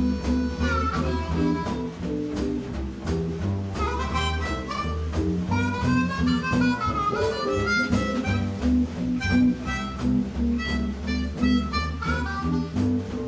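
Acoustic blues band playing an instrumental intro: harmonica lines with bent notes over guitar and a stepping bass line on a steady beat.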